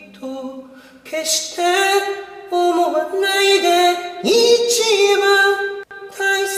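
A solo voice singing a slow song in long held notes, with a scoop up in pitch about four seconds in.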